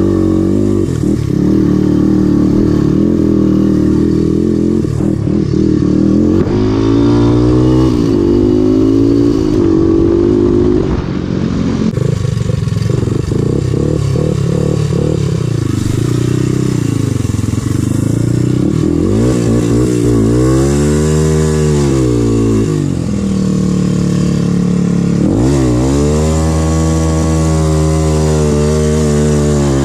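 Honda 300EX ATV's single-cylinder four-stroke engine, fitted with a White Bros aftermarket exhaust, running under load as the quad pushes through tall brush. The pitch wavers with the throttle, and it revs up and back down a couple of times in the second half.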